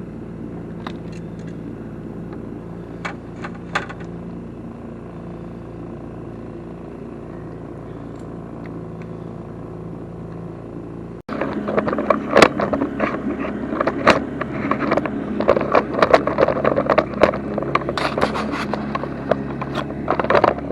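Boat motor running steadily at trolling speed, with a few light clicks. About halfway through, an abrupt cut to a louder jumble of clicking and scraping over the motor.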